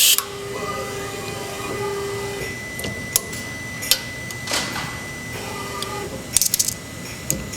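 OmniTurn CNC lathe and its automatic part loader working: a motor whine comes and goes twice, with a steady tone underneath, sharp clicks and knocks in between, and a quick rattle of clicks near the end.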